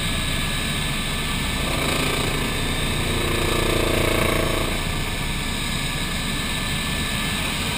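Cabin noise of a twin-turbine MBB Bo 105 helicopter in flight: steady rotor and turbine drone with a constant high whine. In the middle a deeper tone swells up and fades away again as the aircraft manoeuvres.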